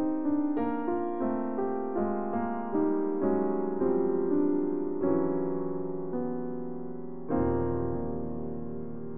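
Piano music: a slow line of single notes, a few a second and spacing out, then a low chord struck about seven seconds in and left to ring.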